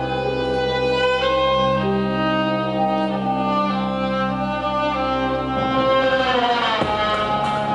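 Violin bowed in long held notes over a steady low drone. Around six seconds in, the pitches slide downward together.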